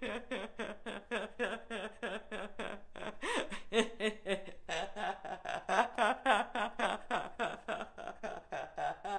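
A woman laughing without a break, in quick runs of pulses several a second that rise and fall in pitch: deliberate laughter in a laughter-yoga exercise.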